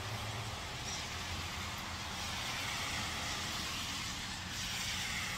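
Road traffic passing: a steady low rumble with tyre hiss that swells over the last few seconds.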